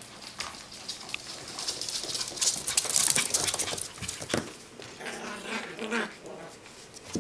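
Yorkshire terrier puppies play-fighting: scuffling and rustling as they tussle on a hardwood floor and cushion, then short puppy growls and whines about five to six seconds in.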